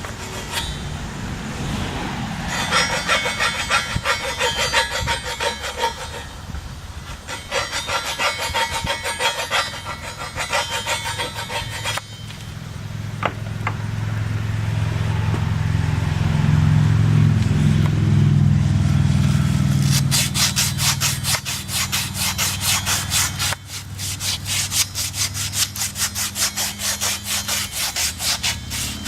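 Rapid back-and-forth scraping strokes worked by hand on a small stainless steel gear, in three bouts with pauses between. Between the bouts a low hum swells and fades.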